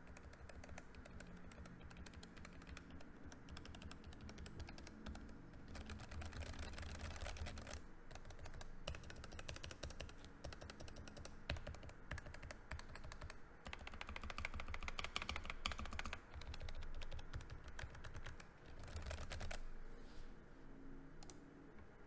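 Keychron K3 low-profile mechanical keyboard with hand-lubed brown switches being typed on fast: dense runs of soft key clicks in several bursts with brief pauses, tailing off near the end.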